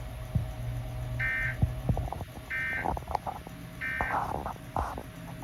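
Three short bursts of EAS digital data tones, each a fraction of a second and about 1.3 s apart: the SAME end-of-message code that closes an alert. Irregular clicks and crackle run under the last two bursts.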